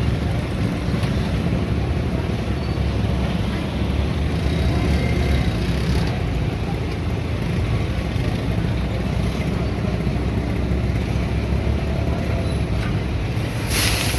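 Busy street ambience: a steady rumble of traffic and market noise. A brief hiss comes near the end.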